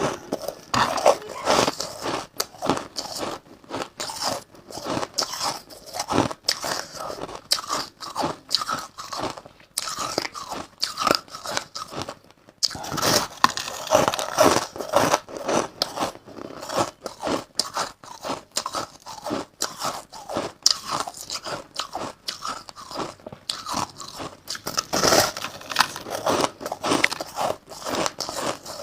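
Crushed ice being bitten and chewed, in a dense run of crisp, irregular crunches with a brief pause about halfway through.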